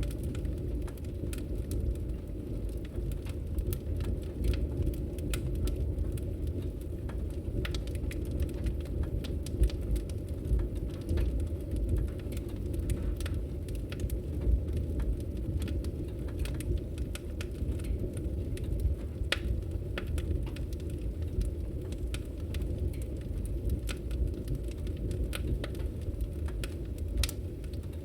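Wood fire burning in a fireplace: a steady low rumble of flames with frequent irregular crackles and small pops.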